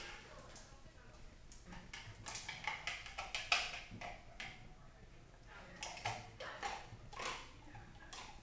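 A dog's claws clicking on a hard floor as it steps about: irregular short ticks, in a bunch about two seconds in and another about six seconds in.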